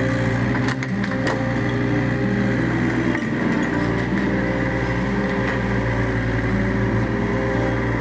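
Kobelco SK30SR mini excavator's diesel engine running steadily under working load while the machine moves sand, its note shifting slightly as the hydraulics work. There are a few sharp clanks about a second in.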